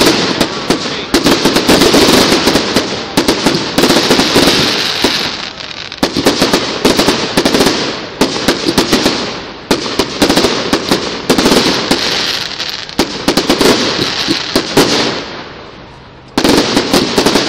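Display fireworks going off in rapid volleys of bangs and crackles, one cluster after another, easing off briefly near the end before a last burst.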